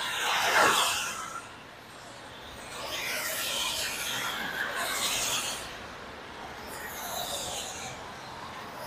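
Cars passing on a rain-soaked road, their tyres hissing through the water: a loud swell just under a second in, a longer one from about three to five and a half seconds, and a smaller one near the end, over the steady hiss of heavy rain.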